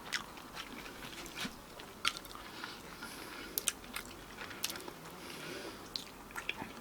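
A person eating barbecued meat off the bone: biting, chewing and crunching, heard as many short, scattered mouth clicks.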